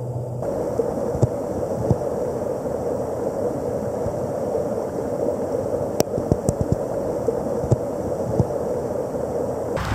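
Storm runoff gushing and churning into a swollen creek: a steady, muffled rush that starts about half a second in and stops abruptly just before the end, with a few sharp ticks scattered through it.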